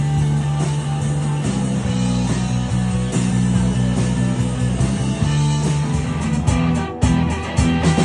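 Rock band playing an instrumental passage: guitar over a steady bass line and drums.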